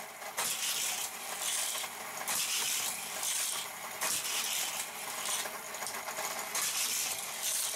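Die-cast Hot Wheels cars and plastic track rattling and clattering, with no pause, in brighter spells that come and go every second or so.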